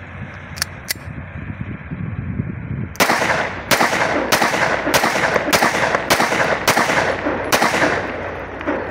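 Beretta 92FS-pattern 9mm pistol fired eight times in steady succession, about one shot every 0.6 s, emptying a magazine in a test fire. The shots begin about three seconds in, after a couple of small clicks.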